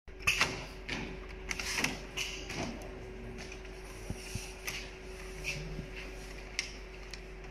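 Irregular clicks and clacks of pattern template frames being handled and slid on a pattern sewing machine's table, over a steady machine hum. The loudest clacks come in the first half-second.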